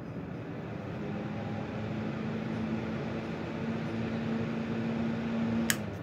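Holmes 6-inch metal table fan starting up: the motor hum and blade air noise grow louder and creep up in pitch as it comes up to speed. A sharp click near the end, as the hum's tone stops.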